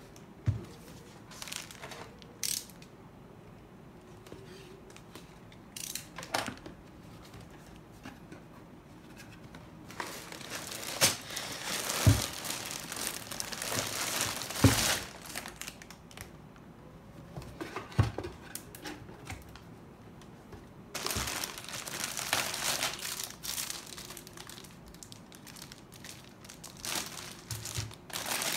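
Sealed plastic bags of Lego pieces crinkling as they are lifted out of a cardboard box and piled up, with the loose bricks inside rattling. A few sharp thuds and knocks come as bags and the box are set down, and the crinkling comes in two long stretches in the second half.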